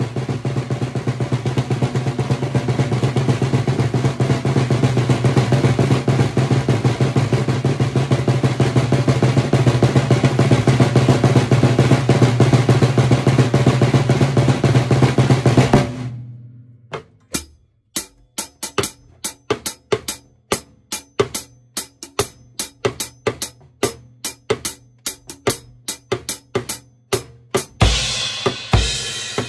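Tama Woodworks 14x8 snare drum played with sticks: a fast roll that slowly swells in loudness, then stops suddenly about sixteen seconds in. Evenly spaced single strokes follow at about three a second, and near the end the playing turns denser as cymbals and bass drum come in.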